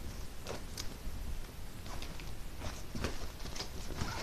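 Items being handled and packed into a bag: irregular rustling with light clicks and knocks, a few per second.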